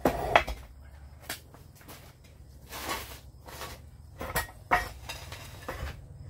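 Rusty Model A front axle assembly, with its brake drums and leaf spring, being shifted on steel jack stands: metal clanks and knocks, a cluster right at the start and then single knocks every second or so.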